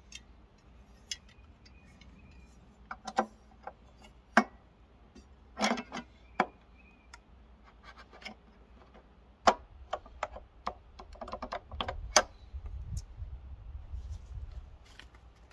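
Hand assembly of a Dobsonian telescope base: a hex key and small metal fasteners click and tap irregularly against the mount's side panel as the eyepiece holder is bolted on. A low rumble comes in near the end.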